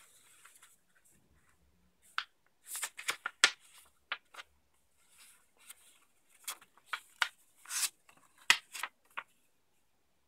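A sheet of printed paper being folded and creased by hand along its dotted fold lines: a run of sharp crackles and rubbing of paper, starting about two seconds in and stopping shortly before the end.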